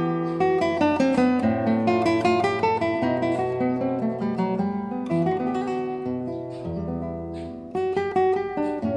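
Background music: an acoustic guitar picked and strummed in a quick run of notes, softening for a moment about seven seconds in before picking up again.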